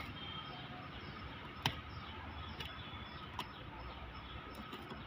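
Four sharp clicks spread over a few seconds as a thin pointed tool picks and slits the packing tape on a cardboard box, over a faint steady background.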